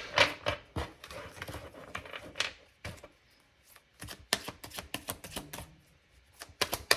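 Tarot cards being handled and laid on a table: a series of light, irregular taps and clicks, with two short pauses.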